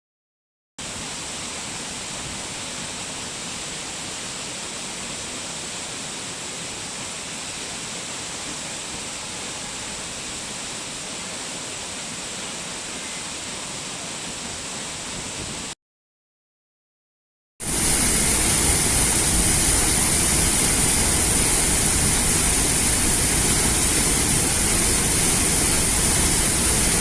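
Waterfall sound effect: a steady rush of falling water. It stops about 16 seconds in, and after a short silence a second, louder waterfall with a deeper rumble starts.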